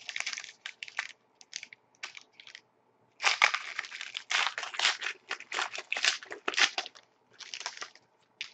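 Foil wrapper of a 2011-12 Panini Titanium hockey card pack crinkling as it is torn open and the cards are pulled out. A run of crackling rustles, scattered at first and densest from about three seconds in to seven.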